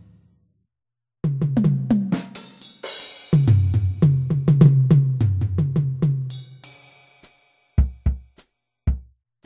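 Yamaha DD-65 digital drum unit playing sampled drum sounds: after about a second of silence, a fast run of kick, snare and cymbal hits with a crash about two seconds in, dying away around seven seconds. Then a few separate deep drum hits, spaced about half a second or more apart.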